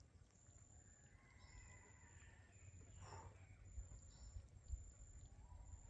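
Near silence: faint outdoor ambience with a high, thin chirp repeating about once a second, a few faint bird-like calls and a low rumble.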